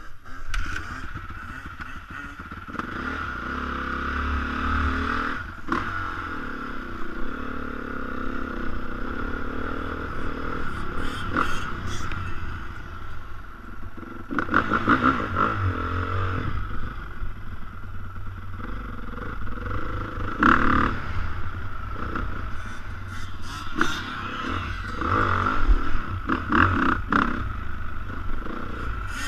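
Dirt bike engine running and ridden across bumpy ground, its pitch rising and falling with the throttle. Sharp clattering knocks come in at several points.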